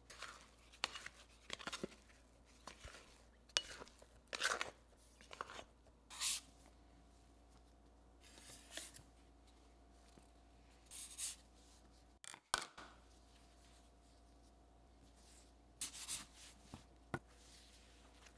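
Scattered short rustling and scraping sounds with a few sharp clicks, irregularly spaced, as of things being handled.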